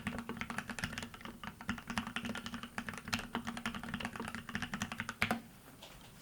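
Fast typing on a TX108se mechanical keyboard with lubed Gateron Ink Black linear switches on a brass plate and PBT keycaps: a quick, dense run of keystrokes ending with one louder stroke a little past five seconds, after which the typing stops.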